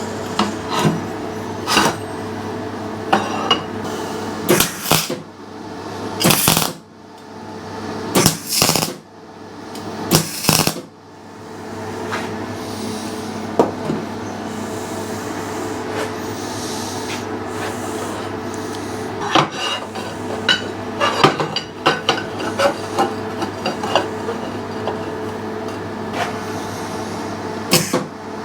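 Short bursts of tack welding on steel plate, four of them between about four and eleven seconds in, over a steady electrical hum. Later come clusters of sharp metallic clanks and taps as the steel pieces are handled and knocked into place.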